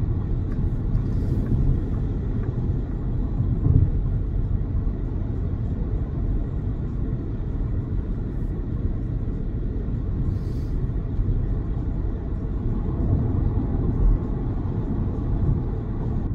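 Steady low tyre and road rumble inside the cabin of an XPeng G6 electric SUV cruising at highway speed, with no engine note.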